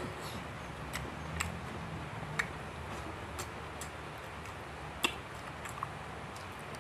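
Eating by hand with the mouth close to the microphone: chewing with scattered sharp mouth clicks, about seven, the loudest about five seconds in, over a steady low hum.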